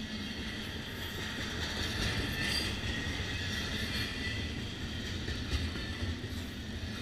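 Double-stack container well cars of a freight train rolling past: a steady rumble of steel wheels on rail with a wavering high wheel squeal and a few sharp clicks from the wheels passing over the rail.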